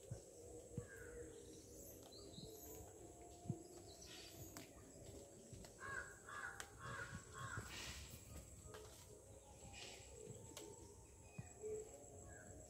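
Faint outdoor ambience under a tree canopy, with distant animal calls: a quick run of about four short harsh calls about six seconds in, and a few light knocks scattered through.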